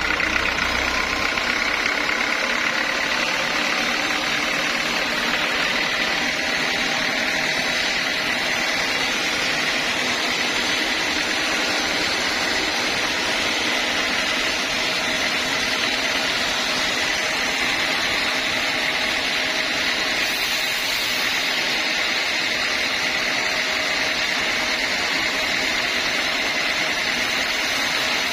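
A band sawmill running steadily: a constant mechanical noise with a steady high tone that holds at the same level throughout.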